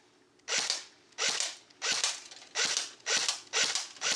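Thompson M1A1 electric airsoft rifle firing single shots: seven short, sharp shots in a row, one a little over every half second.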